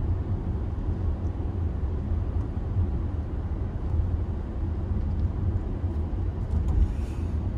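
Steady low rumble of road and engine noise heard inside the cabin of a 2022 Audi Q5 with a four-cylinder turbo engine, cruising at road speed.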